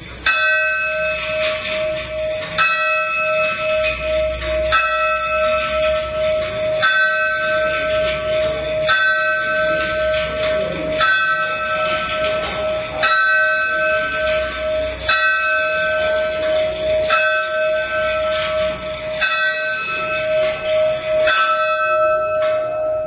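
Bell struck by an F. J. Weule tower clock's striking train: about eleven even strokes, one roughly every two seconds, each ringing out over a steady hum that carries on between strokes. The clock is striking the hour.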